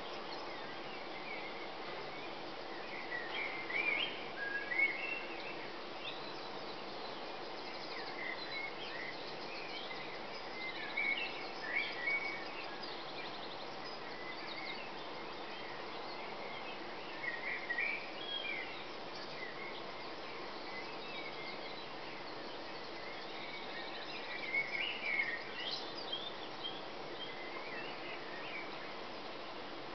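Dawn chorus: birds singing in short, scattered phrases that come in clusters every few seconds, over a steady background hum.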